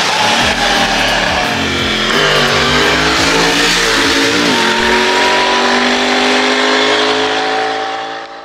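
Parallel-twin motorcycle engine under acceleration, its pitch dipping a couple of times and then climbing steadily over the last few seconds before cutting off suddenly.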